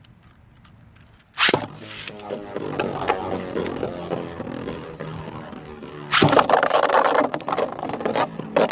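Beyblade spinning tops launched into a plastic stadium about a second and a half in, whirring as they spin. From about six seconds in they clash and rattle loudly against each other.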